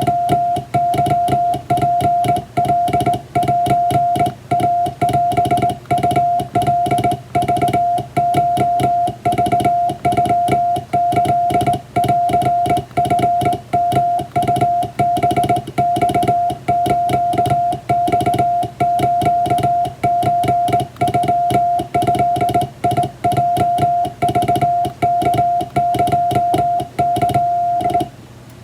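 Japanese wabun Morse code sent by hand on a vertical straight key: a steady mid-pitched beep switched on and off in quick dots and dashes with short pauses between characters, and a sharp click at each keying.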